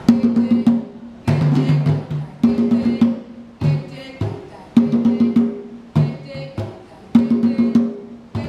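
Drum music: pitched drum strokes played in a fast repeating rhythm, the same phrase of several strokes returning about every 1.2 seconds.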